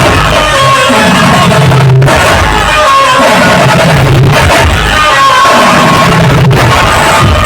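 Loud dhumal band music, with a melody line over a deep bass that slides down in pitch every couple of seconds.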